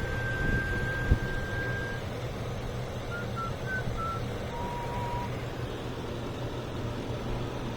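2004 GMC Yukon's Vortec V8 idling with a steady hum. A few thin whistled tones sound over it: one held for about two seconds at the start, then short chirps and a lower held tone near the middle.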